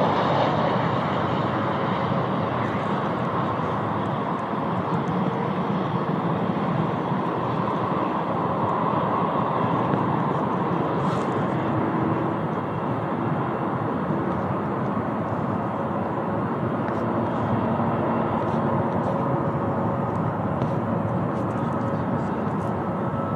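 A Boeing 777-200's twin jet engines running at low taxi power, a steady rumble and hiss with faint steady tones in it.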